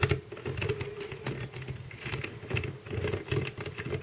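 Plastic pieces of a helicopter cube puzzle clicking and rattling as it is handled and edge pieces are fitted back in: a string of small irregular clicks.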